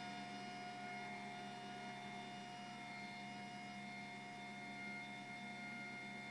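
Small electric motors of a Filastruder filament extruder and puller running steadily: a faint, even hum with a constant whine at several pitches.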